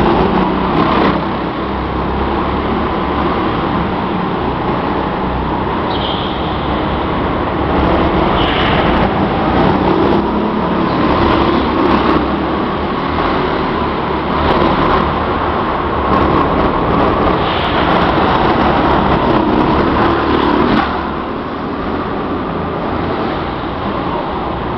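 Go-kart engines running at speed, a steady dense mechanical rush with brief higher-pitched flares every few seconds. The level eases slightly near the end.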